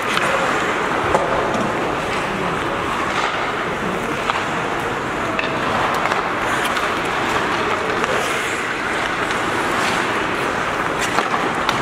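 Ice hockey play heard at the rink: skates scraping the ice in a steady wash of noise, with a few sharp clicks of sticks and puck now and then.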